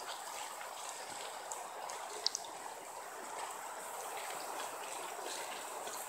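The Rio Grande flowing, a steady even rush of water, with a couple of faint high ticks about two seconds in.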